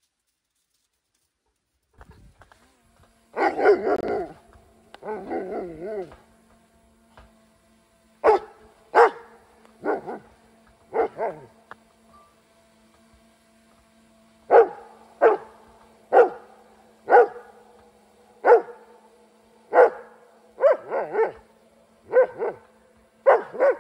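A dog barking at a hovering drone: two drawn-out wavering cries, then short sharp barks about once a second. A steady hum from the drone runs underneath.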